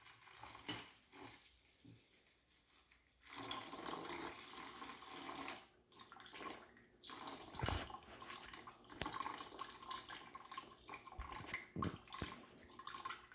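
Water pouring from a plastic pitcher into a plastic bucket of water and sourdough starter, splashing steadily. The pour starts faint with a few small knocks, then gets much louder about three seconds in.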